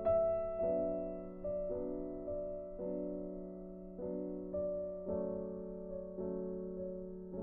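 Instrumental background music: a slow, gentle melody of sustained keyboard notes, a new note struck every half second to a second, over a held low tone.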